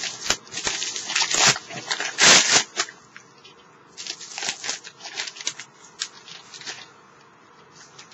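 Packaging being handled and opened: crackling, crinkling wrapping in a run of loud rustles over the first three seconds, then lighter rustles.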